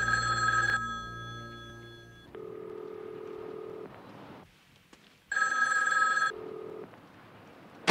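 A telephone rings twice, each ring about a second long, with a quieter steady low tone of a ringback heard through a payphone receiver between and after the rings, as a call goes through to a bedside phone.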